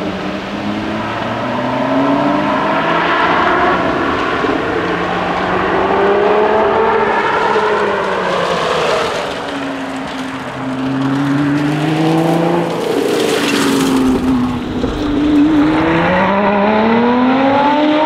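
Lotus Exige 410 Sport's supercharged V6 engine revving hard and easing off through the corners, its pitch repeatedly climbing and dropping with throttle and gear changes. Near the end it revs up again.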